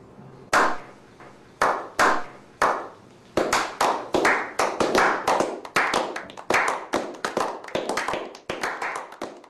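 A slow clap from a small group of people. Single hand claps come about a second apart at first, then more hands join and the clapping quickens into dense applause, which thins out near the end.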